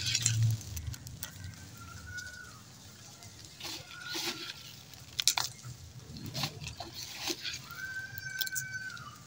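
A flock of pigeons feeding on scattered grain on a stone tile floor: irregular sharp pecking taps and scuffles, with a few wing flutters. A faint thin held tone sounds twice, once near the middle and once near the end.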